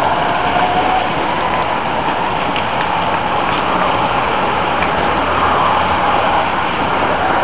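A pack of racing road bikes passing close by: a steady rush of tyres on asphalt and spinning drivetrains, with scattered light clicks.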